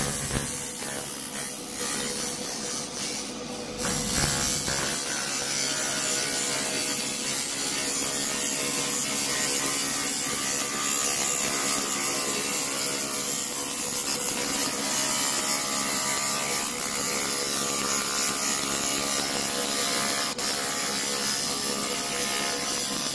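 Laser rust-cleaning machine stripping rust from a steel plate: a steady hiss over a steady machine hum, growing louder about four seconds in.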